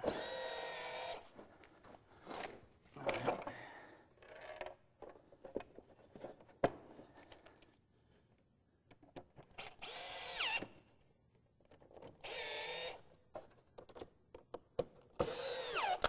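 Cordless drill/driver driving screws into a wooden junction-box lid in several short runs of motor whine, the pitch falling as the motor winds down at the end of some runs. Clicks and knocks of handling come between the runs.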